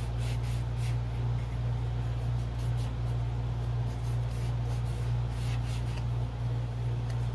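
Rag wiping whitewash off a plastic model brick wall in short, irregular rubbing strokes, over a steady low electrical hum.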